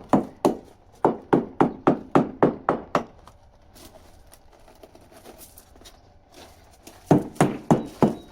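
Surveyor's hammer tapping a fiberglass sailboat hull in quick, sharp knocks, about three to four a second, in two runs with a pause of about four seconds between. This is sounding the hull for dull, thuddy spots that would show the fiberglass separating.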